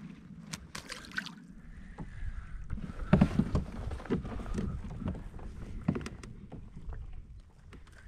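A small crappie dropped back into the water with a quick splash, then irregular knocks and rustles of gear being handled on a plastic fishing kayak, loudest about three seconds in, over wind rumbling on the microphone.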